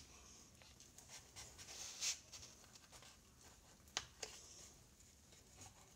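Near silence: room tone with a few faint, soft rustles and a couple of small clicks about four seconds in.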